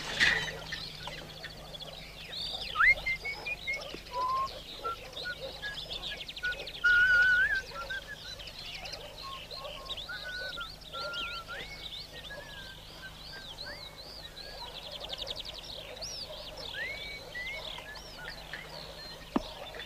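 Several birds singing and chirping: many short rising and falling whistles and quick trills, over a faint steady low hum of the soundtrack.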